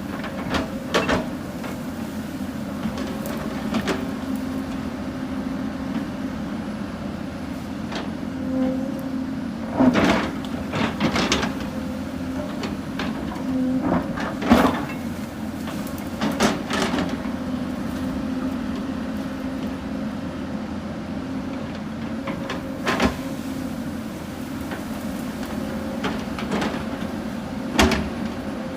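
Hyundai 220 excavator's diesel engine running steadily while it digs, with several sharp metallic clanks and knocks from the bucket and arm scattered through, the loudest near the middle.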